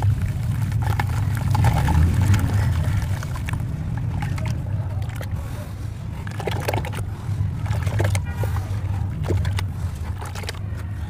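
A dusty grey cast block crumbles into a bucket of water, and then a hand squishes and swishes the wet grey slurry, with crackles and splashes. A steady low rumble runs underneath.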